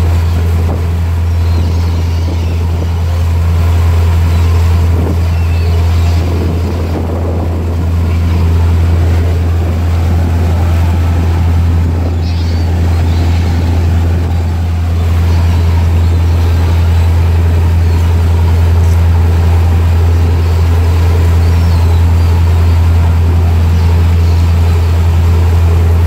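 Tour boat's engine running with a steady low drone, over the rushing noise of the churning wake.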